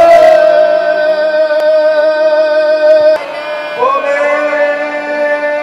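Music of long held sung notes over a steady lower tone; one note breaks off about three seconds in and a new one slides up into place just before four seconds.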